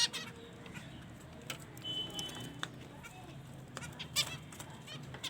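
Birds feeding, with scattered short calls and clicks over a steady low background hum; one brief high, steady note about two seconds in.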